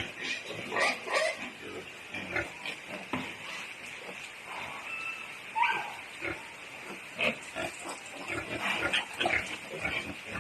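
Native pigs grunting and squealing in short, irregular calls, with one rising squeal about halfway through.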